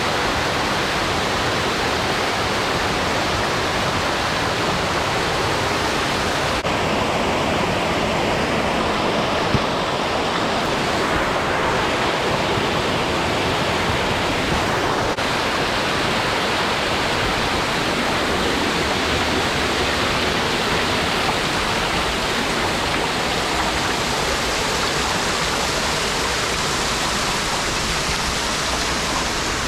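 Steady, even rush of mountain water, with one small tap about ten seconds in.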